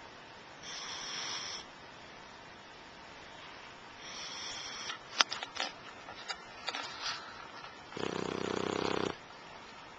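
Snoring in slow breaths about three and a half seconds apart: two thin, whistly breaths, then a louder, deeper rattling snore near the end. A few small clicks come in between.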